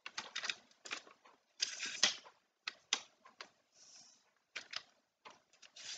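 Camera tripod being collapsed by hand: irregular clicks and knocks from its telescoping sections and clamps, with a few short scraping slides.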